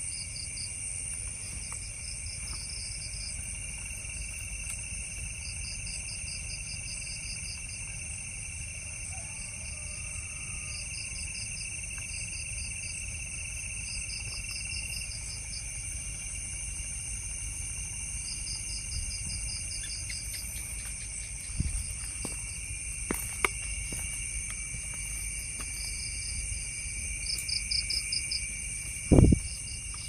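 Night insect chorus: several steady high-pitched cricket tones, with short pulsing trills repeating every few seconds. A few clicks late on and a single low thump near the end.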